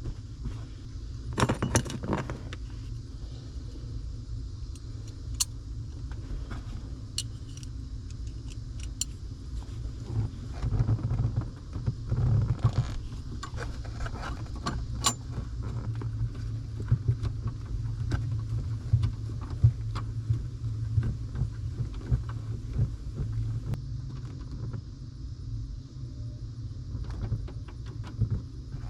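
Small metallic clinks, jingles and knocks, scattered and irregular, from tools and hardware handled under a car's dashboard, over a steady low hum.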